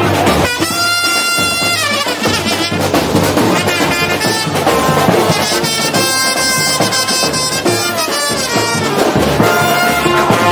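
Street brass band music: horns play long held notes over steady drumming.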